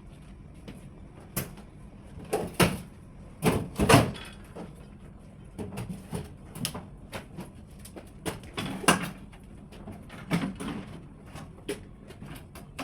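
A series of irregular knocks and clunks, the loudest about two and a half and four seconds in.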